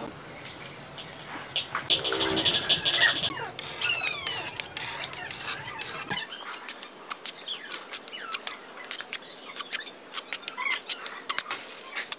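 Trowel work on wet cement: a steel trowel scraping and clicking as mortar is laid along the bowl's rim, with many short sharp clicks in the second half. High squeaky chirps come and go in the first half.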